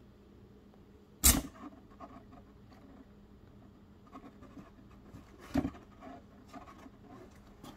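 Cardboard box rustling and scratching under a kitten's paws as it climbs into the open box, with two sharp thumps, one about a second in and one about two-thirds of the way through.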